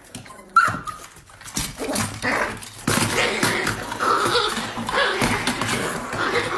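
Small dog vocalising as it wrestles a toy on a hardwood floor, with scuffling and short knocks. The sound starts about a second and a half in.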